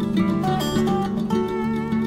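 Music led by plucked acoustic guitar, with notes changing every fraction of a second.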